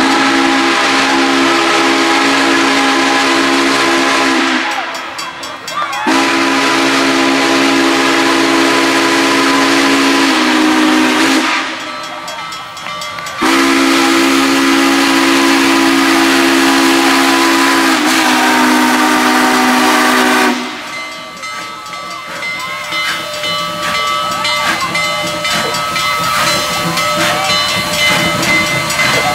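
Union Pacific 844's steam whistle sounding three long chord-like blasts for a road grade crossing, with a short gap between them. After the last blast, near the end, the 4-8-4 steam locomotive rolls up to the crossing with a quieter rushing hiss of steam.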